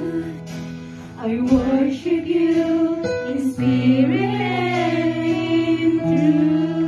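Live Christian worship music: a group of women singing together, accompanied by acoustic guitar and sustained instrumental tones.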